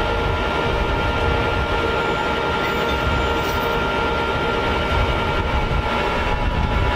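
Remote-control model tow truck's winch running steadily with a whine and low rumble as it hauls a model truck up out of the water on its cable.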